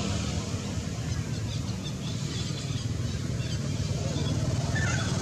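Outdoor ambience: a steady low rumble with faint, scattered bird chirps, and one short chirp near the end.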